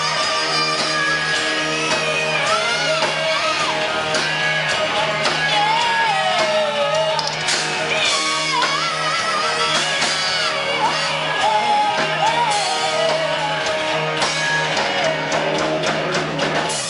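Live rock band playing: a woman singing lead over electric guitars, bass guitar and drums, heard from within the audience.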